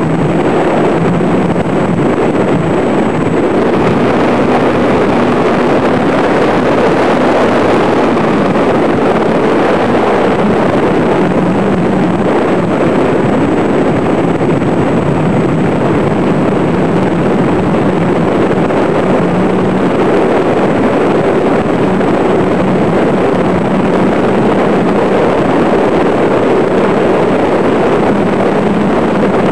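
Steady rushing of wind on the microphone, with the faint drone of a ParkZone T-28 electric model plane's motor and propeller wavering in pitch as it flies.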